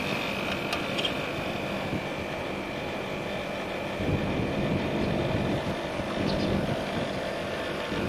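Outdoor unit of a Panasonic 2.5 HP R22 split air conditioner running: a steady hum of the compressor and condenser fan, with a constant high tone. It is being run while it is topped up with refrigerant through the service valve.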